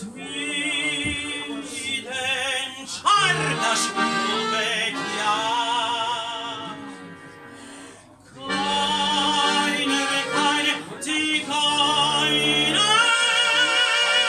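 Operetta-style singing with a wide vibrato over instrumental accompaniment. The music drops away briefly about eight seconds in, then the voice comes back and holds a long high note near the end.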